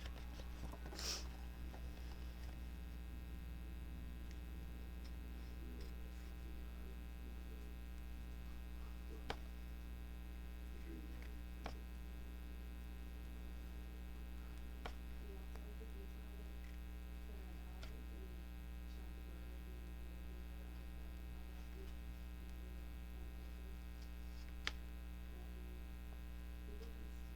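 Steady electrical mains hum, with a few faint, isolated clicks scattered through it.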